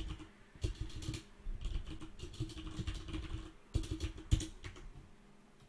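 Typing on a computer keyboard: a quick run of irregular keystrokes that stops about four and a half seconds in.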